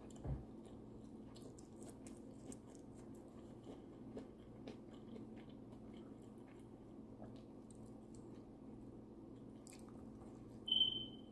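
Fingers picking apart a cooked fish: faint, soft, wet clicks and small squishes over a steady low hum. There is a low thump just after the start, and a brief high-pitched tone near the end.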